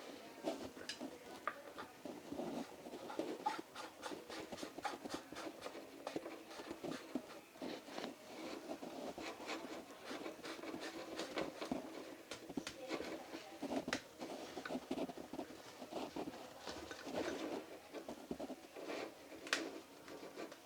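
Irregular small clicks, taps and rubbing from hands working the plastic and metal parts of a public telephone handset under repair.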